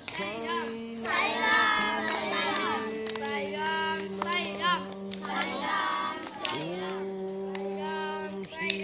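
Group of children singing a prayer together in unison, the melody moving over a steady held note beneath.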